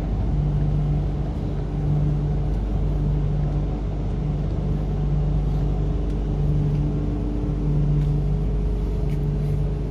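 Interior of an MTR Kwun Tong Line Q-Train electric multiple unit slowing into a station and coming to a stop: a steady rumble with a low hum that comes and goes, and a higher steady tone joining near the end.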